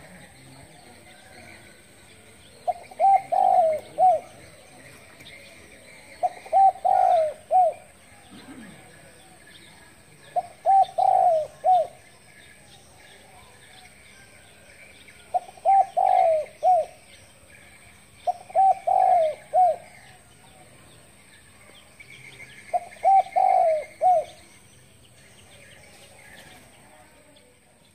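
Spotted dove cooing: six phrases of three or four short coos, a few seconds apart. Faint chirping of other birds and a thin steady high tone run underneath.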